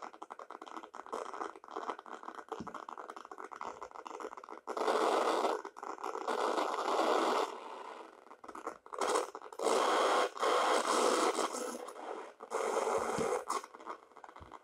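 Bastl Kastle 1.5 mini modular synth in noise mode, its output crackling like a vinyl record's surface noise. Three times, from about a third of the way in, it swells into louder, denser noise for a second or two and then drops back to the crackle.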